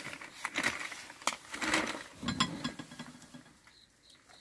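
Scattered clicks, knocks and short rustling bursts of things being handled, thinning out and falling quiet near the end.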